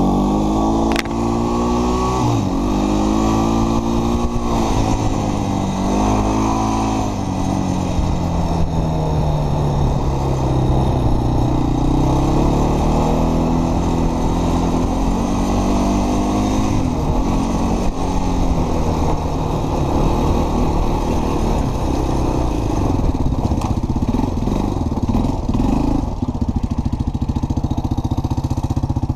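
Off-road vehicle engine running continuously under a rider's throttle. Its pitch rises and falls again and again as the machine speeds up and slows on the trail, then settles to a steadier note near the end.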